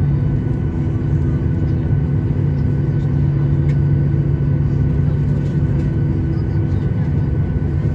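Steady low drone inside the cabin of a Boeing 737-800 on the ground, its CFM56-7B engines idling, with a constant hum and a faint steady whine above it.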